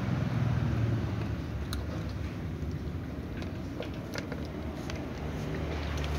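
Cats crunching dry kibble at close range: scattered short, sharp crunches over a steady low hum.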